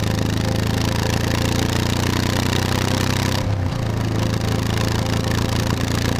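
Motorcycle engine running steadily while being ridden. The note dips briefly and picks up again about three and a half seconds in.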